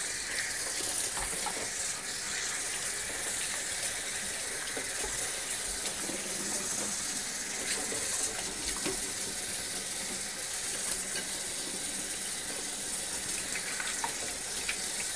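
Kitchen sink faucet running steadily while fresh scallions are rinsed under the stream.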